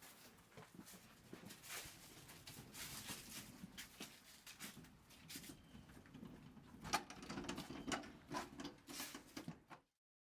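Faint scattered knocks, clicks and scuffs of a fridge being handled on a stair-climbing moving cart, busiest and loudest a little before the end.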